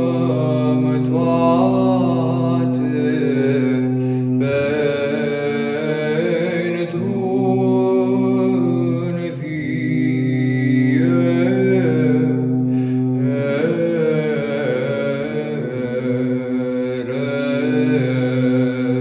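A solo male cantor chanting Byzantine psaltic chant, a long melismatic melody that winds up and down, over a steady low drone (ison) held beneath it that breaks briefly twice.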